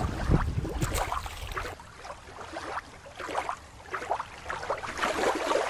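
Outdoor water and wind noise: a low rumble for the first couple of seconds, then a cut to fainter sea ambience with scattered soft splashy sounds.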